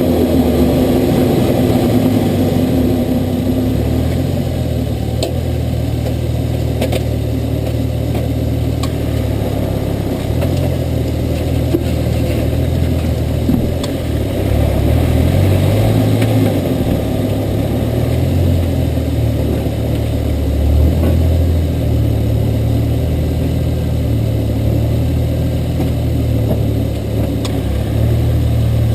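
The turbocharged 4.0-litre Barra inline-six of a Ford Falcon F6 Typhoon running at low revs, its engine note shifting slightly up and down, heard close from under the bonnet.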